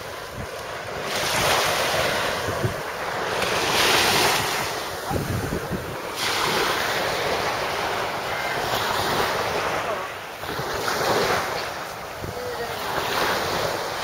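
Small sea waves breaking and washing up a sandy, pebbly shore, swelling and falling back every few seconds, with wind buffeting the microphone.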